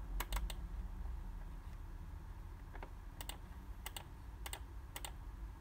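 Computer mouse clicks: about a dozen short, sharp clicks, several in quick pairs, over a faint steady low hum.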